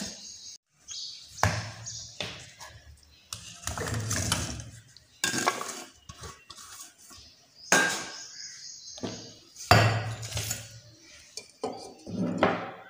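Steel dishes knocking and scraping against a stainless-steel mixer-grinder jar as chopped vegetables, leaves and sugar are tipped into it: a series of separate clatters with short pauses between them.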